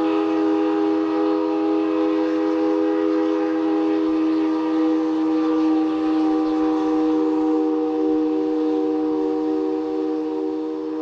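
Steam locomotive whistle blowing one long, steady chord of several notes, fading slightly near the end.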